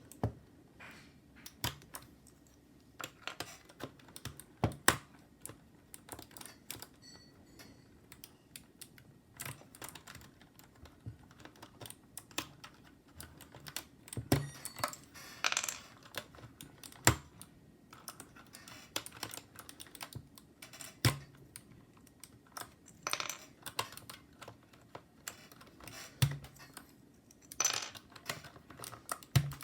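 Mechanical keyboard keys with PBT keycaps clacking under irregular presses: scattered clicks, a few a second, with some louder strikes among them.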